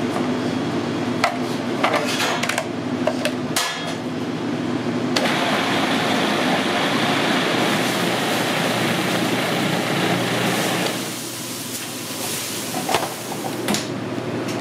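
A few knocks and clicks, then a food processor runs for about six seconds, blending vegetables into a purée, and stops abruptly.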